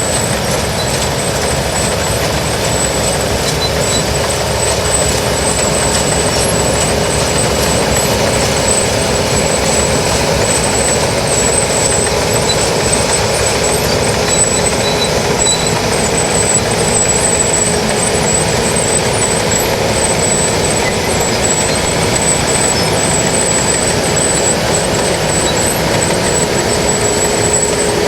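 New Holland TX68 combine harvester running steadily, its engine and machinery making a continuous loud drone with a steady high whine over it.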